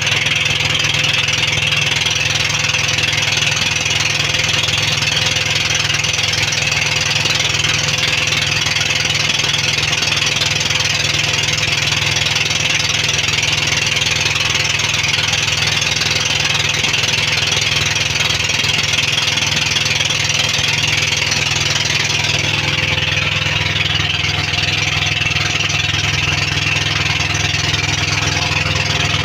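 Outrigger pump boat's engine running steadily, heard on board, with an even hiss over it.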